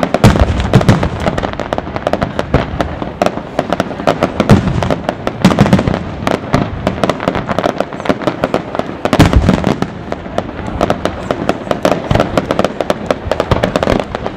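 Competition fireworks display going off: a dense, continuous barrage of crackling and popping shells, with heavier booms about five and nine seconds in.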